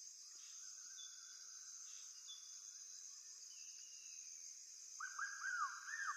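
Faint insect and bird sounds: a steady high insect hum, a few falling whistled notes, then a quick run of rising-and-falling chirps near the end.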